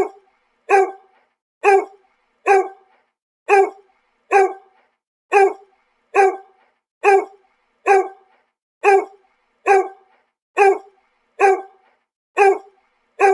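A dog barking single barks over and over at an even pace, a little faster than one a second, each bark alike, with dead silence between them.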